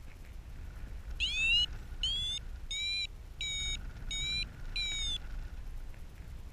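A paragliding variometer beeping six times, evenly at a bit under one beep a second, with the first beeps sliding slightly down in pitch: the climb tone that signals the glider is rising. Low wind rumble runs underneath.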